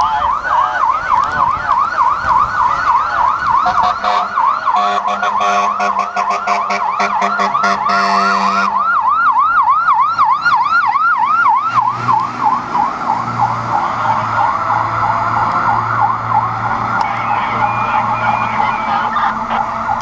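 Fire rescue truck's electronic siren on a rapid yelp, its pitch sweeping up and down over and over. From about four seconds in, the truck's air horn sounds in a quick string of short blasts for about four seconds, ending in a longer blast. A low steady hum joins the siren later on.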